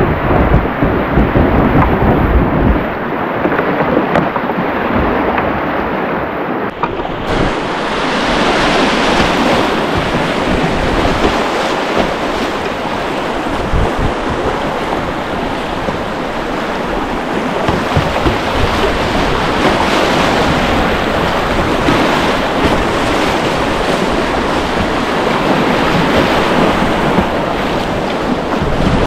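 Steady rush of whitewater through a river rapid, close to the water, with low rumbling buffets of wind on the microphone in the first few seconds.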